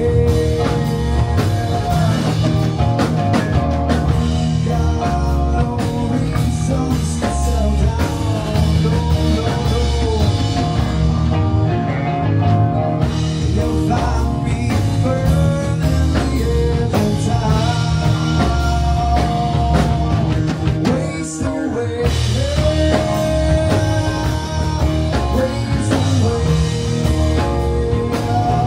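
Swamp-rock band playing: drum kit, distorted electric guitar and bass. The full band briefly thins out about two-thirds of the way through.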